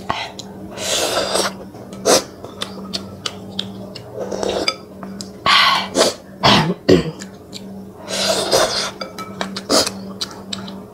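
Close-miked eating sounds of very spicy noodles: several short slurps and mouth noises, with light clicks of wooden chopsticks and a spoon against a glass bowl.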